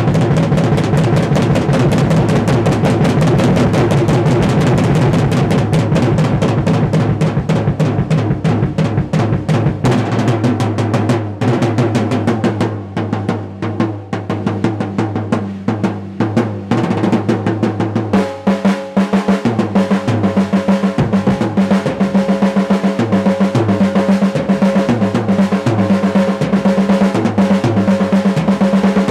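Drum kit played in a solo: fast, dense rolls across the drums with bass drum. About ten seconds in the strokes thin out, and from about eighteen seconds an even, steady run of strokes takes over, with the drums ringing on pitch.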